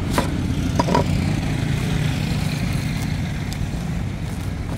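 A heavy cleaver chops into a young green coconut's husk on a wooden board, striking about three times in the first second. A steady low motor rumble runs underneath throughout.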